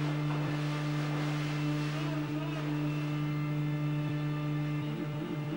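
A steady, held low drone with overtones, part of the music track. Near the end its pitch starts to waver up and down.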